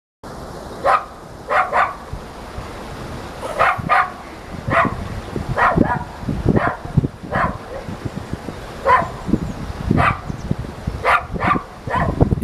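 A small dog barking about fifteen times in short, sharp yaps, irregularly spaced and often in quick pairs, with wind rumbling on the microphone underneath.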